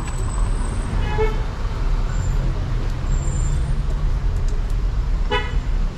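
Town street traffic: a steady low rumble of vehicles, with two short vehicle-horn toots, one about a second in and one near the end.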